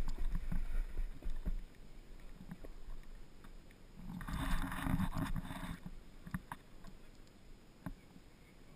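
Snowboard sliding over groomed snow, with low rumble and scattered knocks from wind and movement on the helmet camera's microphone. About four seconds in, a louder scrape of the board on the snow lasts a little under two seconds.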